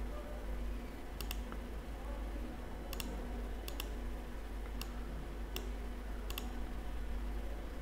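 Computer mouse button clicks: about ten sharp clicks, several in quick pairs, spread over five seconds, over a faint steady low hum.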